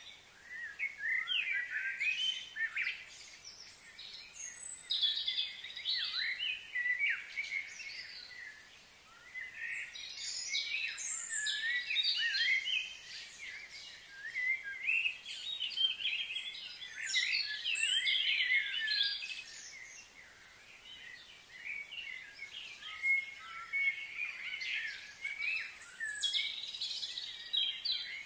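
Several birds chirping and singing in a busy, overlapping chorus of short warbling calls, easing off briefly about a third of the way through.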